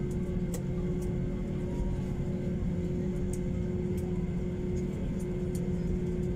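Airliner cabin noise while taxiing after landing: the jet engines run steadily at idle as a low rumble with a constant hum, and a few faint light ticks come and go.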